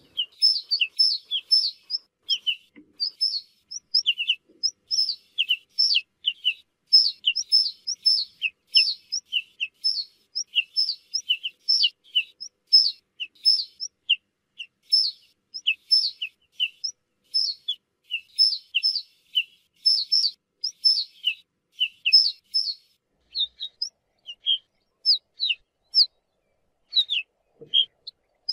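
Ortolan buntings calling: a quick, dense run of short, high, down-slurred notes, several a second and often overlapping, thinning out near the end.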